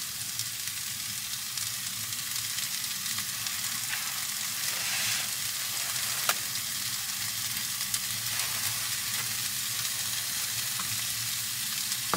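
Chicken breasts sizzling as they sear in a frying pan over a portable gas stove: a steady frying hiss with a few sharp pops.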